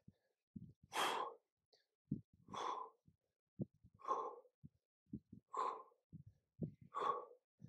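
A man's forceful exhalations, one with each two-handed kettlebell swing: five hissing breaths about every second and a half.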